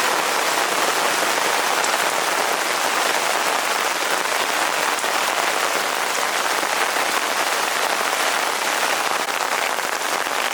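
Steady, fairly loud rain falling without a break.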